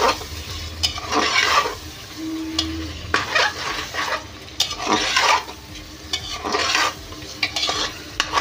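Metal spatula scraping against the sides of an aluminium pressure cooker in repeated strokes, stirring chicken and spice masala as it fries.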